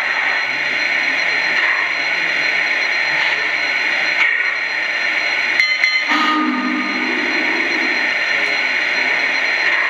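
Onboard sound system of a Lionel Vision Line GS-4 steam locomotive model playing a steady hiss of idling steam. About six seconds in, a lower pitched tone joins it for about two seconds.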